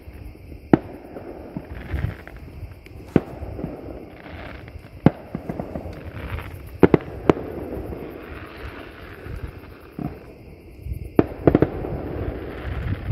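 Distant fireworks going off: about nine sharp bangs at irregular intervals, several in quick pairs, over a steady low rumble.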